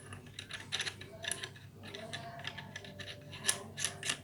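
Light metallic clicks and clinks of steel crimping dies and the retaining pin being handled and fitted into the head of a hand-pumped hydraulic cable-lug crimper, the dies sitting loose and rattling in their seat.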